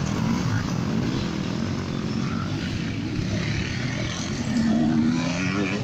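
Enduro dirt bike engines running, with one revving up and rising in pitch near the end.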